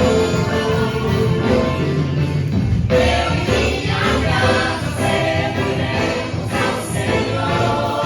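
Christian worship song sung by a group of voices with instrumental backing, briefly thinning out about three seconds in.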